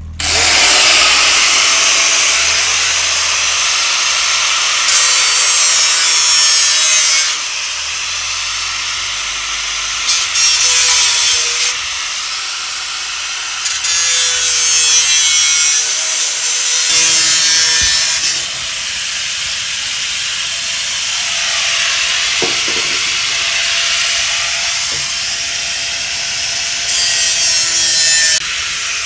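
Electric angle grinder with a cutting disc cutting through the thin galvanized steel wall of a bucket: a continuous loud grinding that grows louder in several stretches of a second or two.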